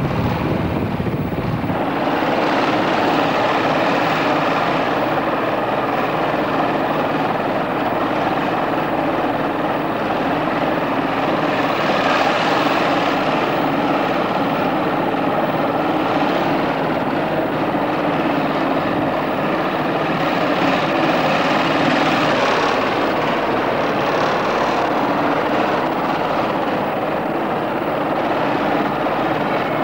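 A propeller engine running steadily throughout, swelling louder three times as its pitch and loudness rise and fall.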